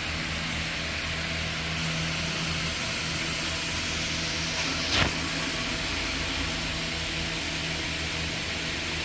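Steady mechanical hum with a constant low drone, and a brief falling whoosh about five seconds in.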